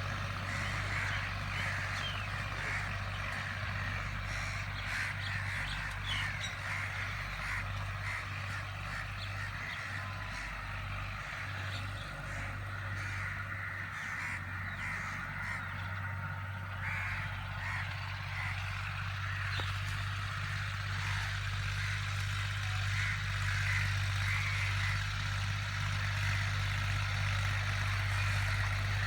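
Tractor engine running steadily under load while ploughing, with many birds calling over it in short repeated calls.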